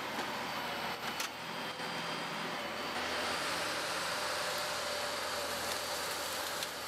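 Wheeled forestry harvester's diesel engine running steadily, a continuous mechanical hum.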